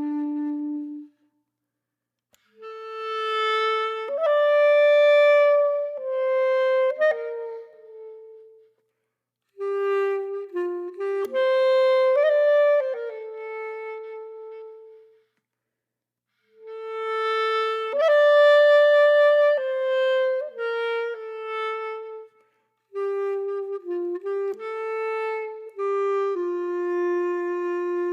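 Slow solo melody on a single woodwind-like instrument, played in four phrases with short silences between them.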